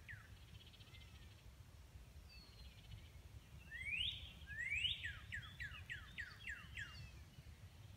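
A bird singing: two loud rising whistled notes about four seconds in, then a quick run of about eight falling notes, roughly four a second. Faint higher bird calls and a low steady rumble sit underneath.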